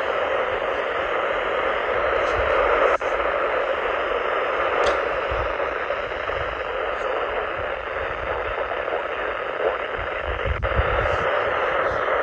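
Weather radio receiver hissing with steady static, with no voice or alert tone coming through; a short dropout about three seconds in and occasional low rumbles.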